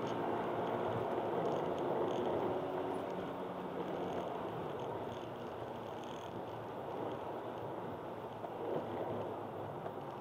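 Inside a Honda Accord Type-S wagon at speed on a wet track: its K24 four-cylinder engine pulls hard under a steady rush of tyre and road-spray noise. The sound slowly gets quieter.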